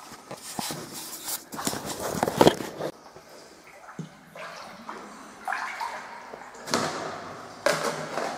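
Water sloshing and splashing around an inflatable dinghy as it is moved through a flooded brick canal tunnel, in irregular surges, the biggest about two seconds in and another near the end.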